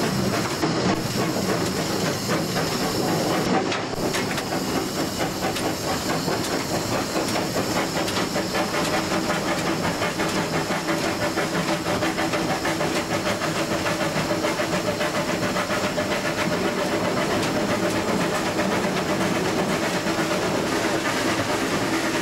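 Narrow-gauge steam locomotive running under way, heard from inside its cab: a steady hiss of steam with rattling, and a fast, even beat.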